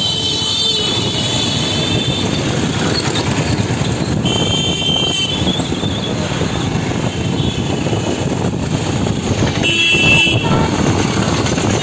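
Busy street traffic with a steady rumble of engines and road noise. Vehicle horns sound three times: at the start, about four seconds in, and near the end.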